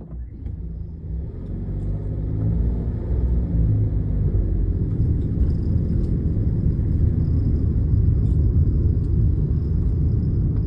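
Suzuki Wagon R Smile mild-hybrid kei car pulling away from a standstill, heard from inside the cabin. The low engine and road rumble builds over the first three seconds as it accelerates, then runs steadily.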